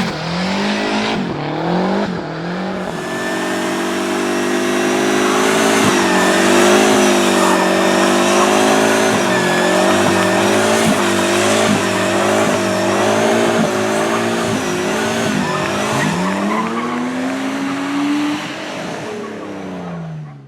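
Turbocharged four-cylinder engine of a 1974 Fiat 124 Spider Abarth revving hard while the car drifts, with tyres squealing. The revs swing up and down at first, are held high through the middle, swing again near the end, then the sound cuts off suddenly.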